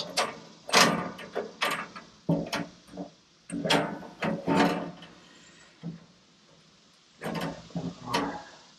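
Steel bandsaw blade rattling and clanking against the Wood-Mizer LT15 sawmill's blade wheels and housing as it is worked into place by hand: a string of irregular metallic clatters, with a short lull a little past halfway.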